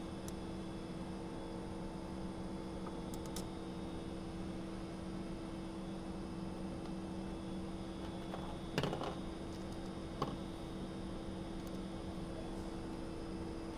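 Steady electrical hum with two low tones, and a few light clicks and taps from small parts and a screwdriver being handled on a workbench, the clearest about nine and ten seconds in.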